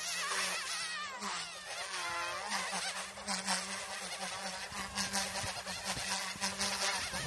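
GOOSKY S2 micro electric RC helicopter flying 3D manoeuvres: a thin, insect-like buzz from its motors and rotors over a steady low hum, the pitch sweeping up and down in the first couple of seconds as it swoops and flips.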